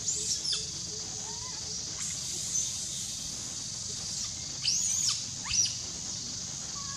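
Forest ambience: a steady high insect drone with a few short, high-pitched arching chirp-like calls, one at the start, a faint one near the middle and two close together a little after four seconds.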